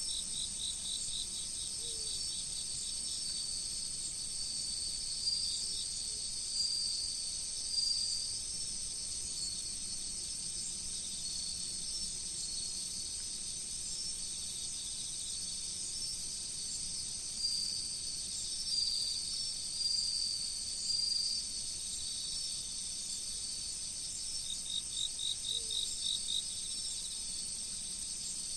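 Chorus of autumn insects: a continuous high-pitched trill, with shorter trills coming and going and pulsed chirping at a lower pitch near the start and again near the end, over a faint flowing river.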